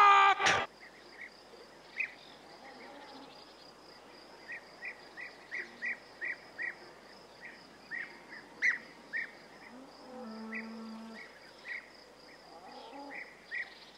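Crickets chirping: short chirps in runs of a few a second over a steady high trill. A faint drawn-out low tone comes in briefly around ten seconds in.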